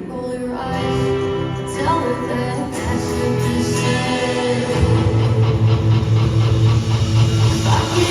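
Live band music with a singer's voice over it, heard through the hall. A heavy low bass comes in about five seconds in and the music grows louder.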